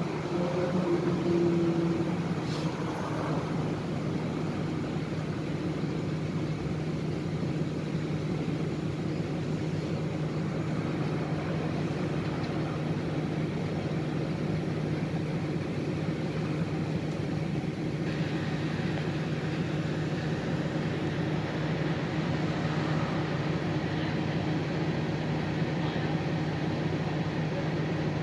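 City bus engine idling steadily while the bus stands still, heard from inside the passenger cabin as a low, even hum. A falling whine dies away in the first couple of seconds.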